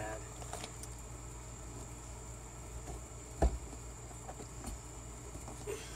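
Faint clicks of parts being handled as hands work at the shifter trim in the truck cab, with one sharp knock about three and a half seconds in. A steady high insect drone runs underneath.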